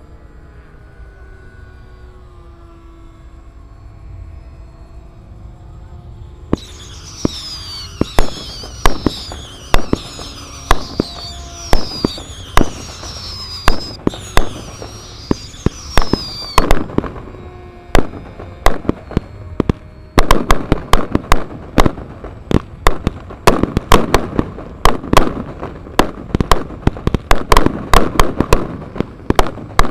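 Model aircraft engines drone overhead. About six seconds in, pyrotechnic bangs start, mixed with high whistles that fall in pitch. From about twenty seconds the bangs come thick and fast, like a string of firecrackers imitating gunfire in a staged battle.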